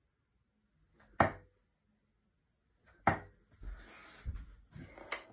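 Steel-tip darts thudding into a bristle dartboard, two sharp hits about a second in and about three seconds in. Softer knocks and rustling follow.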